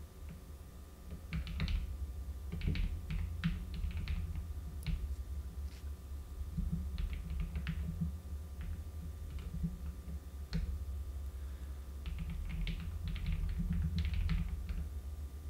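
Typing on a computer keyboard: irregular clusters of keystrokes broken by short pauses, over a steady low hum.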